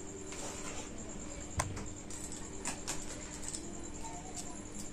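Faint clicks and light rattling of multimeter test leads being handled and untangled, the plastic probes and plugs knocking together now and then, with one sharper click about one and a half seconds in.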